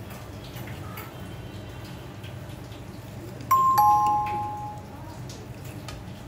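A two-tone electronic ding-dong chime, a higher note then a lower one, sounds about halfway through and fades within about a second. Under it runs a steady low hum with a few faint light clicks.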